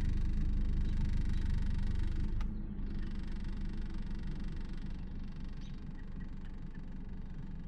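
A steady low motor rumble that drops in level with a sharp click about two and a half seconds in, then carries on more quietly, with a few faint high chirps near the end.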